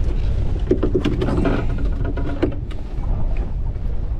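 Wind buffeting the microphone on an open boat: a loud, uneven low rumble, with a few sharp clicks and knocks from handling about a second in and again near the middle.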